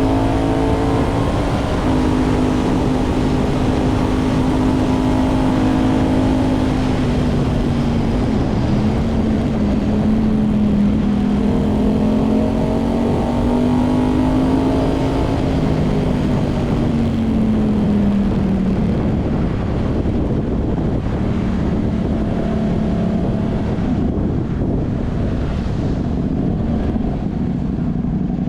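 Ducati Hypermotard V2's V-twin engine running through a dB-compliant titanium full exhaust system with Inconel headers, under way on the road. The engine note holds fairly steady and gently rises and eases off a couple of times, over a constant rush of wind and road noise.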